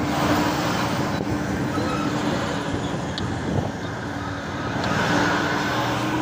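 Engine and road noise heard from inside a moving vehicle: a steady drone with a low, even hum that eases slightly about two-thirds of the way through.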